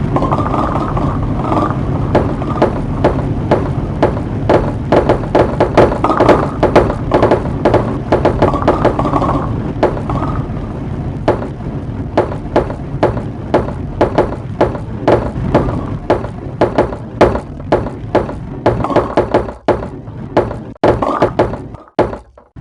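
Marbles running down a marble run: rapid, irregular clicks and clacks over a steady low rumble. Near the end the rumble drops away and only scattered clicks are left.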